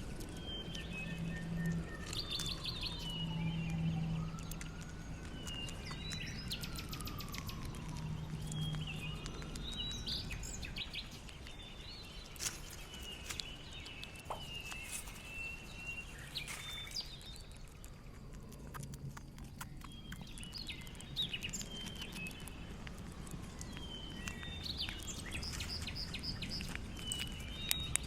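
Outdoor birdsong: birds calling and chirping again and again, with a few slow falling whistles in the first half. Scattered sharp clicks and a low steady hum lie underneath.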